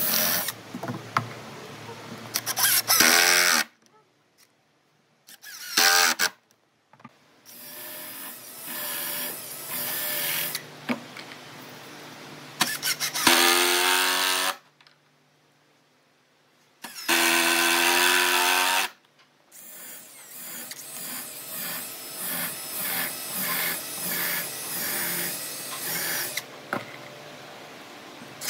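Electric power tools running in a string of short bursts, the motor whine rising and falling as they spin up and wind down. The bursts are cut off abruptly by brief silent gaps.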